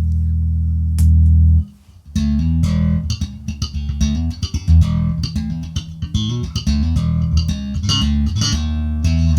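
Electric bass played through a Zipper optical compressor pedal: a held low note, a new note struck about a second in and cut off, then after a short gap a fast, busy line of notes with sharp, percussive attacks that stay at an even level.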